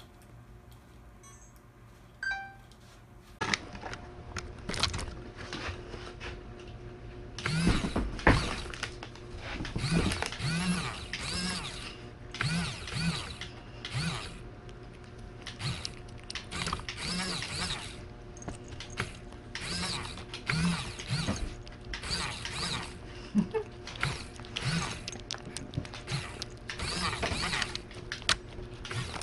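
Cats licking a paste treat off a small plate right in front of the microphone: repeated short licking sounds, one or two a second, growing busy a few seconds in, over a faint steady hum.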